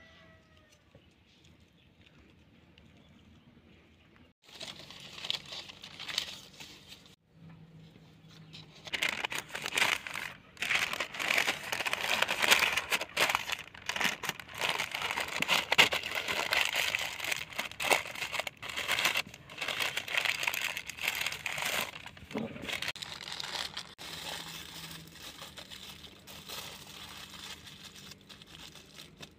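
Baking parchment paper crinkling and rustling as hands fold and crease it. It starts about four seconds in, is loudest in the middle, and tapers off near the end.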